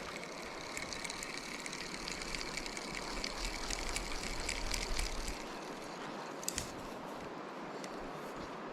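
Steady rush of a shallow river, with a fishing reel whirring as the line is wound in for about five seconds, then stopping; a single click about a second later.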